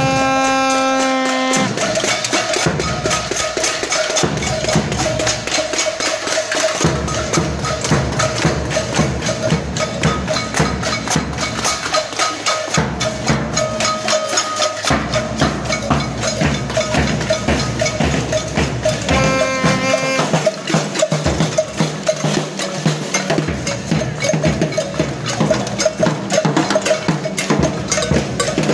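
A crowd making noise with a drum and clanking, knocking percussion such as cowbells and wood blocks, a dense, continuous banging. A held horn-like note sounds at the start and again about 20 seconds in.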